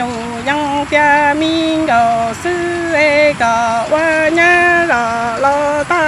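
A woman singing in Hmong with no accompaniment, a chant-like melody of held notes with slight vibrato that steps between a few pitches.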